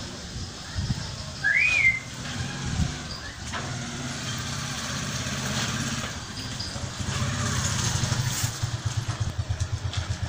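An engine running steadily, its low throb pulsing evenly and growing clearer in the second half. A single short chirp rises and falls about two seconds in.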